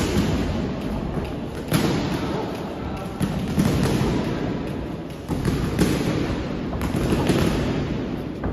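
Boxing gloves landing: irregular sharp thuds and slaps during sparring, echoing in a large training hall over a steady din.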